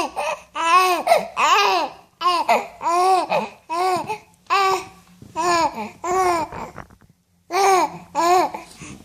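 A ten-week-old baby cooing and babbling: a string of short high-pitched vocal sounds, each rising and falling in pitch, with a brief pause about seven seconds in.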